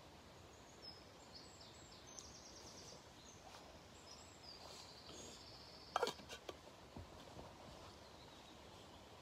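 Faint songbird song with high rapid trills. A single sharp knock about six seconds in is the loudest sound.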